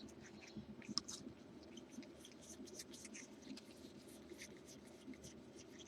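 Faint rustling and light, irregular clicks of trading cards being slid and flipped through a stack by hand.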